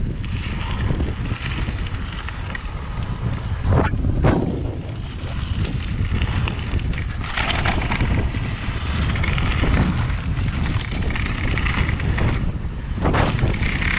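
Wind buffeting the microphone of a mountain bike running fast down a gravel track, with the tyres rolling over loose stones. There are a couple of sharp knocks from bumps about four seconds in and again near the end.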